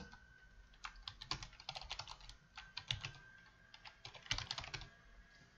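Faint typing on a computer keyboard: several short runs of key clicks with brief pauses between them.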